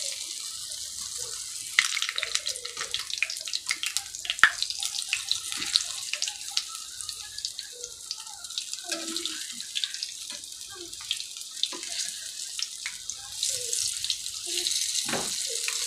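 Moong dal bhalle deep-frying in hot oil: a steady sizzle with dense crackling and popping that grows louder near the end. Sharp clicks and scrapes come from a slotted metal spatula turning and lifting the fritters in the pan.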